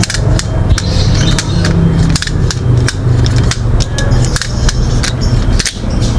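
Cold Steel FGX balisong being flipped through a loop, its glass-filled nylon handles clacking in quick, irregular clicks, several a second, over a steady low drone.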